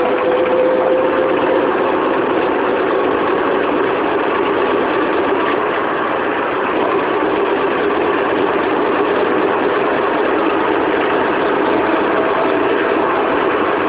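A 1994 Proton Saga's 1.5-litre four-cylinder engine running steadily, with a faint whine over it that sinks slightly in pitch in the first couple of seconds, and a second, higher whine near the end. This is the weird spinning noise that the car makes under acceleration, its cause not yet known.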